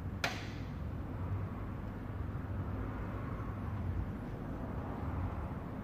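Steady low hum, with one sharp click shortly after the start and a few faint ticks as a black plastic dash trim piece is handled and set down on the bench.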